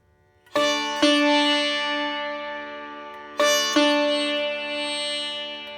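Background music of plucked string notes, struck in two pairs that ring out and slowly fade over a steady low drone.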